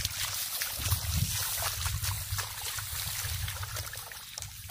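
Shallow muddy water trickling and sloshing, with small splashes, as clumps of wet rice stubble and mud are pulled and moved through it, over a steady low rumble.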